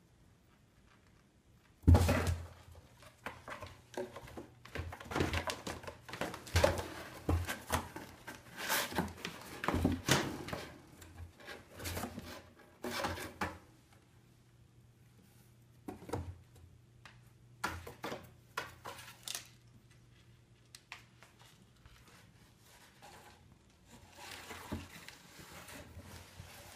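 A cat knocking, scratching and pushing at a cardboard box: a sudden loud thump about two seconds in, then a busy run of taps, bumps and rustles against the cardboard for about twelve seconds, thinning to a few scattered knocks and going quiet in the second half.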